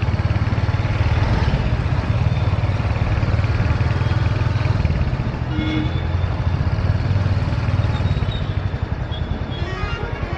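Motorcycle engine running steadily with a low, even throb as the bike rides along the road. A brief short tone sounds about halfway through.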